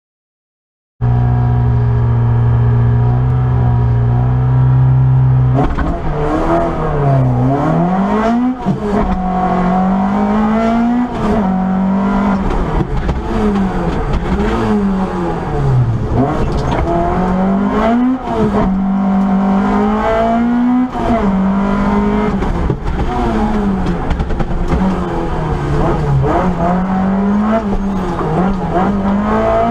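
Peugeot 205 GTI-6 rally car engine heard from inside the cabin. It holds steady revs for a few seconds, then runs hard under power, the revs rising and dropping sharply again and again as the driver changes gear and lifts for corners.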